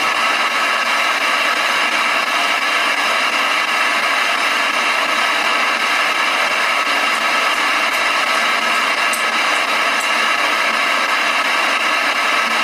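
Steady loud hiss of static with the low end cut away: the boosted noise floor of a digital voice recorder played back in search of an EVP.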